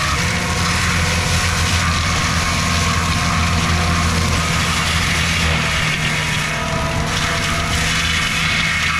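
Diesel engine of a skid steer fitted with a forestry mulcher, running steadily.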